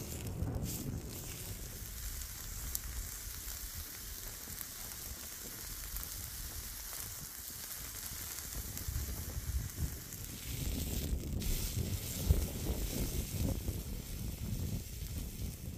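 A large beef roast sizzling on a hot metal grill grate over embers, fat spitting. A low rumble runs underneath and grows louder in the second half.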